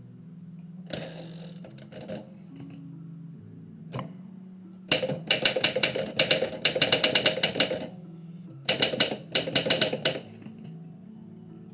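Typewriter keys striking in fast bursts: a few single strokes early, then about three seconds of rapid typing starting around five seconds in, and a shorter burst near the end, over soft background music.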